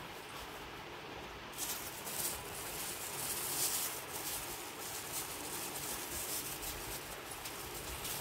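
Thin plastic wrapping crinkling and rustling as it is handled and pulled off a clear phone case. It starts about one and a half seconds in and is loudest around the middle.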